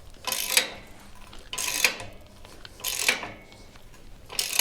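Hand socket ratchet wrench working a fastener, its pawl clicking in four short runs on the back-swings, about one every second and a half.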